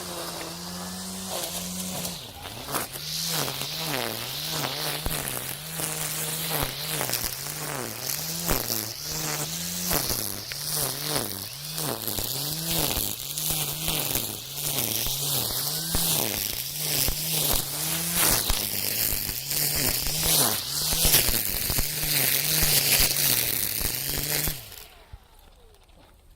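Makita 40V cordless string trimmer spinning its nylon line through weeds: a steady electric whine that repeatedly sags in pitch and recovers as the line bites into the growth, with rapid crackling strikes of line on stems. The motor stops near the end.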